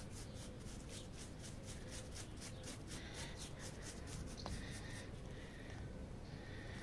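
A brush scrubbing over freshly ground olive wood to clear the dust and shavings from the carving: quick, regular strokes, about five a second, faint, easing off after about three seconds.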